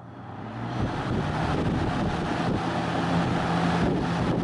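Galaxy 3713 box fan running up to speed with its blade freshly epoxied back onto the hub. The motor hum and rush of air build over the first second, then run steadily.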